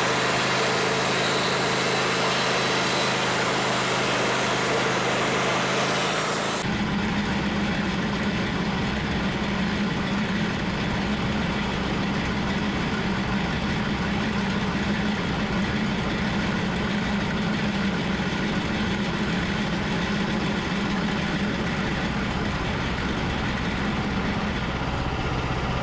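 Homemade band sawmill's engine running steadily under power. About six and a half seconds in the sound changes abruptly, the hiss dropping away and a heavier, lower hum taking over.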